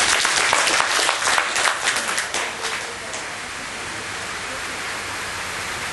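Crowd applause, dense at first and dying away about three seconds in, leaving a steady hiss.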